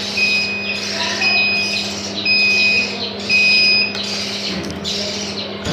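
The homemade fridge incubator's controller alarm beeping in two-tone pips, about one a second, four times, then stopping about four seconds in; it is going off because the incubator's heat has escaped. Newly hatched chicks peep throughout over a steady low hum.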